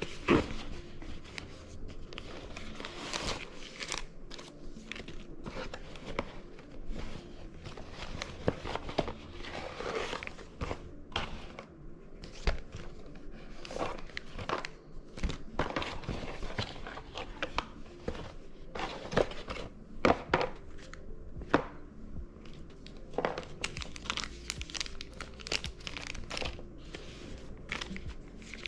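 Packaging being handled and unwrapped: irregular crinkling and tearing rustles with scattered clicks and knocks.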